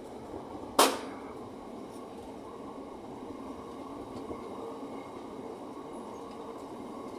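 Freight train of empty container flat wagons rolling past on the rails, a steady noise of wheels on track, with one sharp bang a little under a second in.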